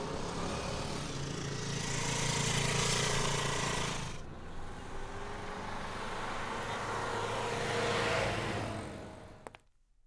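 Road traffic: a motor scooter's engine grows louder as it passes and drops away, then a car drives up and its engine sound rises and fades out near the end.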